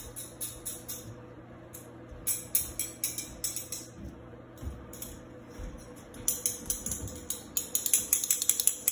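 Metal spoons clinking against a small metal cat-food bowl in a steady rhythm of bright metallic clinks, about three to four a second, pausing twice briefly and coming faster near the end.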